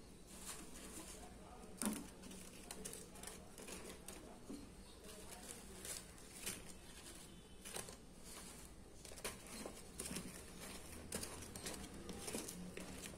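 Slotted wooden spatula knocking and scraping in a pan of sugar syrup as fried urad dal jamun balls are dropped in and turned. Faint, scattered clicks and knocks, with one sharper knock about two seconds in, over a faint steady hum.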